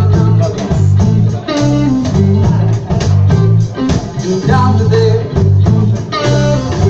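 Blues band playing live: guitar lines over a steady, rhythmic bass line and drums.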